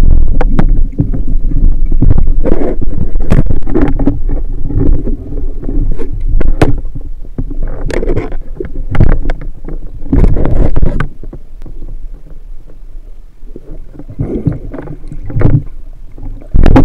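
Muffled underwater noise from a camera held below the surface: water rushing and knocking against it in loud, irregular surges. The surges ease off about eleven seconds in.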